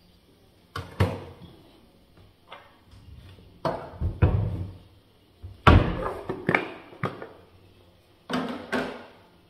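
A series of sharp hard-plastic knocks and clacks, some in close pairs: a clip-lock plastic food storage container being unlatched and its lid pulled off.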